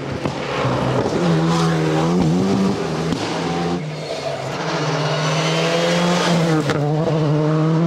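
Rally car engine running hard at high revs along a special stage, its pitch dipping and climbing again twice as the driver lifts and shifts.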